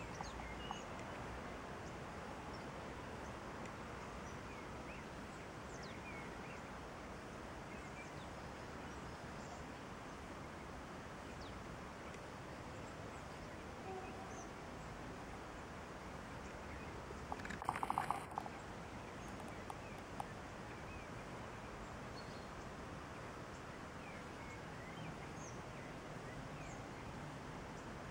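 Outdoor ambience: a steady background hiss with faint bird chirps scattered through it, and one brief, louder pulsing call about two-thirds of the way in.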